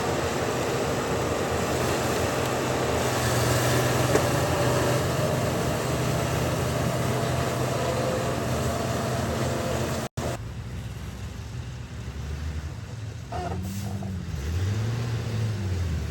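Diesel earthmoving machinery running under load: a dense, steady engine drone. About ten seconds in it cuts off abruptly, and a quieter diesel engine revs up and down several times.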